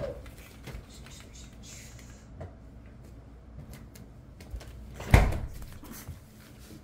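Faint scattered clicks and taps, with one louder thump about five seconds in.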